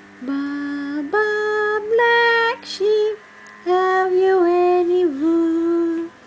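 A woman singing or humming a slow, wordless tune to a baby: a string of long held notes that step up and then settle back down, with short pauses between phrases.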